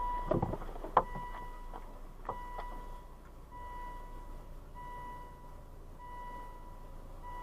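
Car warning chime beeping at an even pace, a little under one beep a second, after a held tone and a few sharp clicks or knocks in the first couple of seconds.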